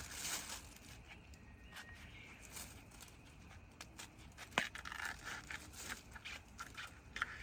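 Tough outer husks being peeled off a fresh bamboo shoot by hand: a run of dry tearing and snapping, busier in the second half, with one sharp crack about four and a half seconds in.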